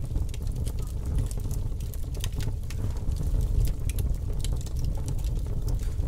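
Fire crackling: irregular sharp crackles and pops over a steady low rumble.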